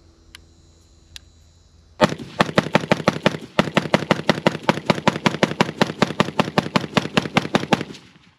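Diamondback DB15 AR-15 rifle in 5.56 firing a long, rapid string of semi-automatic shots, about six a second, starting about two seconds in and stopping abruptly near the end.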